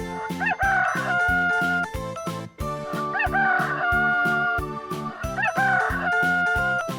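Rooster crowing three times, each crow about a second and a half long, over background music with a steady beat.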